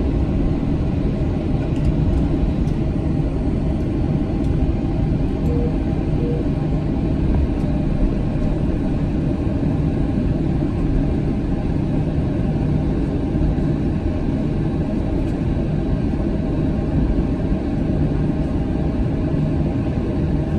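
Steady low rumble inside the cabin of an Airbus A320 taxiing, its jet engines at idle, with a faint steady hum over it.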